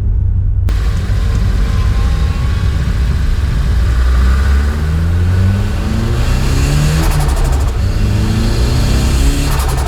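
Nissan Silvia S15's turbocharged SR20DET four-cylinder accelerating through the gears, its pitch rising under boost. When the throttle is lifted the turbo flutters with compressor surge, a rapid chatter through the dose pipe with no blow-off valve. The flutter comes about two-thirds of the way in and again near the end.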